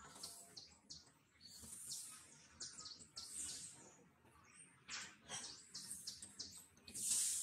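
Faint outdoor wildlife ambience: short high chirps, and a high hiss that swells and fades about every one and a half seconds.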